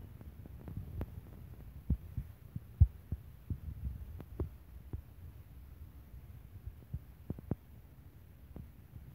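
Handling noise as hands fold a cloth blouse piece around a small metal pot: irregular soft taps and knocks over a low rumble, the loudest knock about three seconds in.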